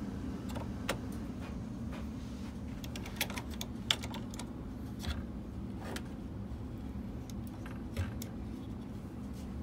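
Scattered small clicks and taps of an Intel i5-7500 being seated in its LGA1151 socket and the socket's metal load plate and retention lever being closed, the sharpest click about four seconds in. A steady low hum runs underneath.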